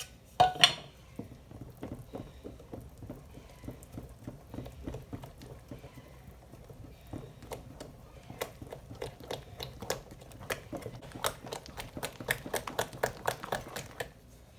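Mixing by hand in a bowl: a utensil clicks against the bowl in a steady run of light strokes, a few a second, growing faster and louder toward the end. A sharp clink comes about half a second in.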